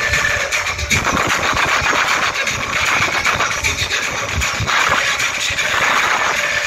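A man imitating a motor vehicle's engine with his mouth and cupped hands into a microphone, heard loud through a stage PA as a continuous, pulsing engine noise.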